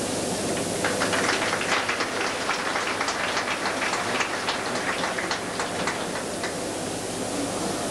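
Audience applauding, starting about a second in and dying away near the end, over a steady background hiss.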